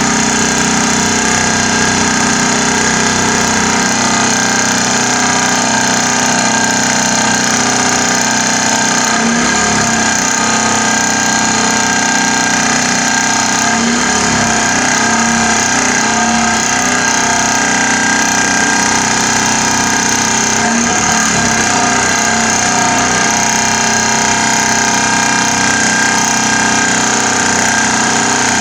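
Pile driver driving a rolled steel profile pile into the ground, a loud, steady mechanical drone with a fast buzzing vibration underneath; its pitch wavers briefly a few times.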